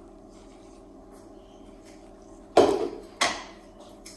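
A faint pour of frothy cocktail into a glass, then two sharp knocks about half a second apart, the first the louder, as a plastic blender jug and a small bowl are set down on a stone countertop.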